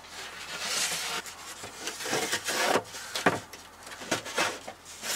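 A sheet of plywood scraping and sliding over a wooden frame, then several wooden knocks as it is shifted and set into place.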